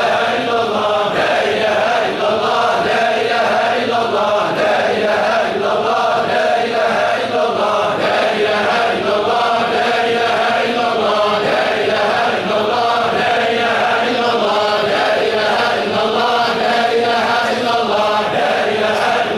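Congregation of men chanting Sufi dhikr in unison, one short phrase repeated over and over at an even pace of about one phrase every second and three quarters.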